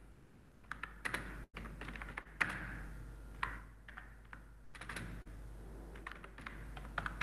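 Typing on a computer keyboard: uneven clusters of key clicks with short pauses between them.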